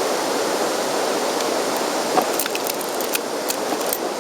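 Steady rush of moving river water. About halfway through comes a run of light clicks and taps from gear being handled on the kayak.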